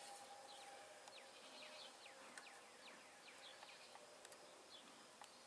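Faint buzzing of honey bees around an opened hive, with a run of quick, high, falling chirps from a bird through the middle and a few light clicks.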